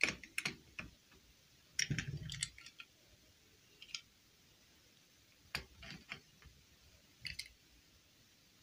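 Small plastic princess doll figures being picked up and set down on a green plastic stand: scattered light clicks and taps in small clusters, with a duller knock about two seconds in.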